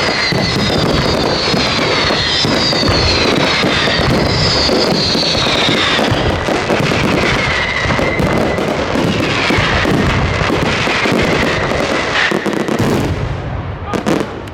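Fireworks finale: a dense, continuous barrage of bangs and crackling, with whistling shells gliding down in pitch, until it dies away about thirteen seconds in.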